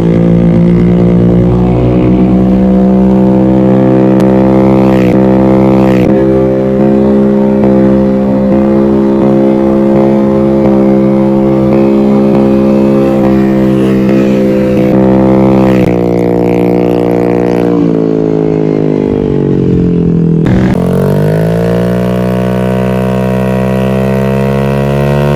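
Motorcycle engine through an open SC Project exhaust, held at steady revs for about fifteen seconds. The revs then sink slowly, drop sharply about twenty seconds in, and climb again in one long rise.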